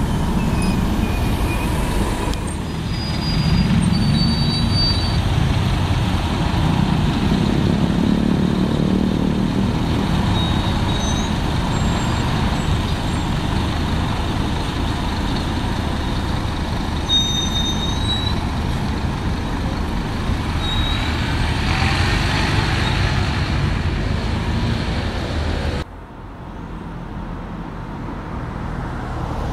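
Single-deck coach's engine running as it pulls away and drives off, a steady low rumble with road noise. About four seconds before the end it drops suddenly to quieter road traffic as a single-deck bus approaches.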